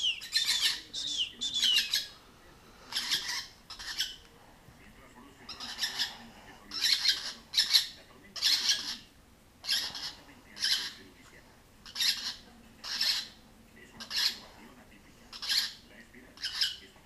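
Young hand-reared lovebird chicks calling from the cage: harsh, raspy squawks roughly once a second with short pauses, and a few short falling chirps in the first two seconds. The insistent, repeated calling is typical of hand-fed chicks begging for food.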